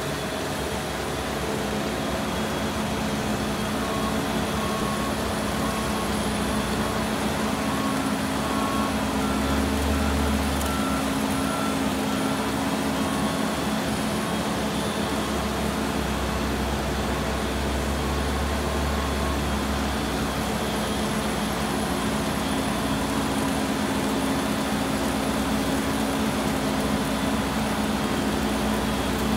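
A CAS AT7 All-Terrain Slinger running steadily, its engine and conveyor belt giving a continuous machine hum while it throws material. A deeper engine rumble swells briefly twice.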